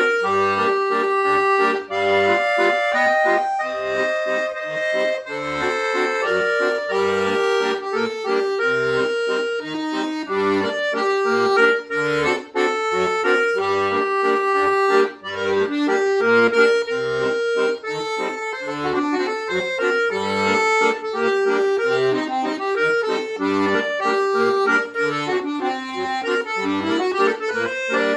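Chromatic button accordion playing a solo piece: a sustained melody line over a regular pulse of low bass notes.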